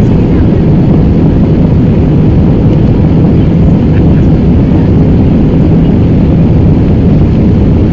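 Jet airliner's engines and rushing air heard inside the passenger cabin during the climb after takeoff: a steady, loud, low rumble.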